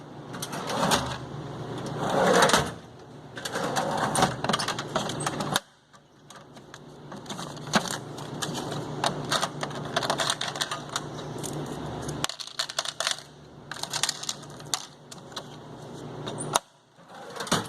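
Cash register in use: rapid clicking keys and mechanical clatter, with coins clinking. The sound comes in a few separate stretches that cut off abruptly.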